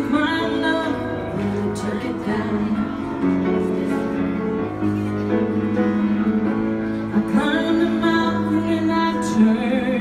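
A woman singing a ballad with long held notes while accompanying herself on piano, performed live.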